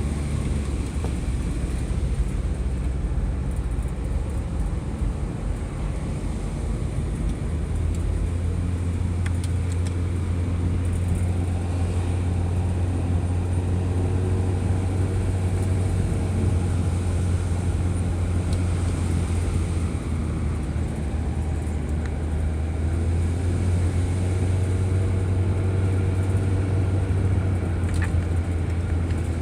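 An engine running steadily with a continuous low drone, its faint pitched hum clearest through the second half.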